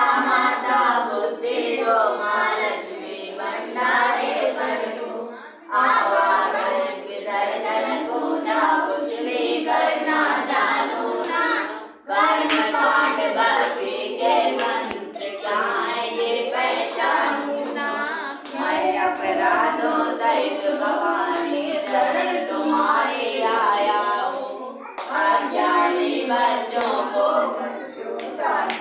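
A small group singing a Hindu devotional song to the goddess together, with hands clapping along. There are brief breaks between lines about six and twelve seconds in.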